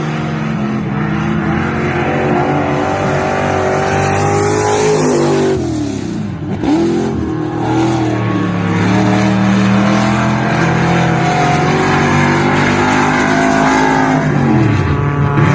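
Racing engine running hard at high revs. Its pitch drops as the throttle comes off about six seconds in, then climbs back up, with another short dip and recovery near the end.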